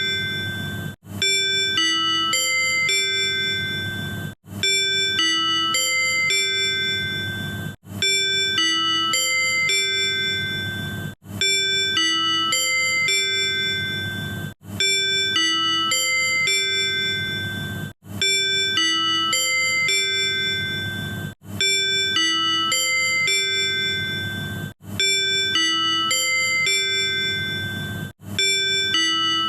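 Tobu 100 series Spacia's manual on-board chime, the chime that precedes conductor announcements and on-board sales notices. A short phrase of several chime notes repeats over and over, with a brief break about every three and a half seconds.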